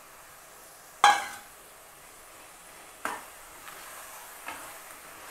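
A small steel bowl knocks sharply once against the rim of a pressure-cooker pot as chopped coriander is tipped into crab curry, followed by lighter clinks and scrapes of a steel spoon stirring it in, over a faint steady sizzle.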